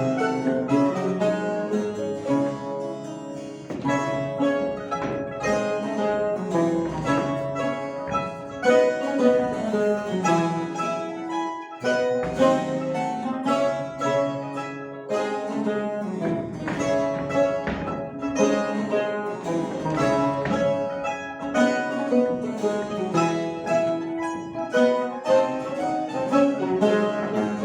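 Mandolin ensemble playing a classical-style piece, with plucked and tremolo strings over a lower accompaniment and a brief break about twelve seconds in.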